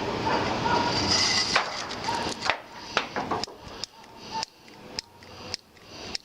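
Firecrackers going off: a dense crackle of pops that thins after about two and a half seconds into separate sharp bangs at irregular intervals.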